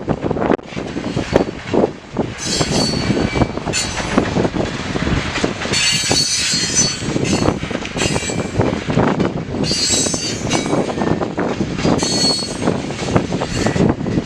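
Canadian Pacific freight cars rolling past, wheels clacking over rail joints, with high-pitched wheel squeals coming and going several times.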